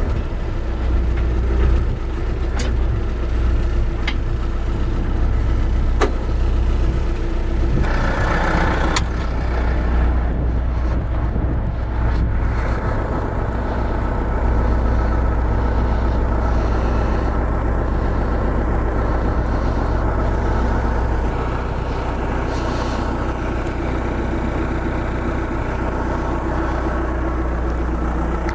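Backhoe engine running steadily, with a few sharp knocks in the first nine seconds.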